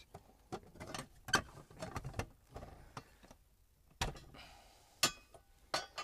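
Scattered sharp clicks and knocks from handling an outdoor air-conditioner disconnect box, its cover being opened to shut off power to the unit.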